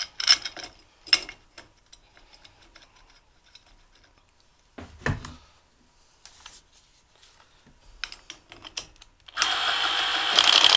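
Metal parts clink and knock as the heater's motor housing is fitted, with a low thump about five seconds in. Near the end a cordless impact driver runs for about a second and a half, driving in a bolt on the housing.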